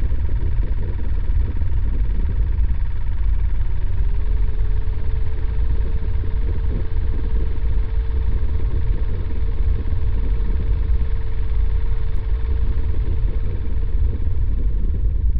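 A steady, loud low rumble, with a faint steady hum from about four seconds in until near the end.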